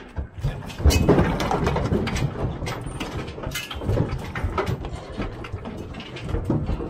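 Cattle running through a steel handling alley, the steel panels rattling and clanking as the animals push past, with a loud knock about a second in.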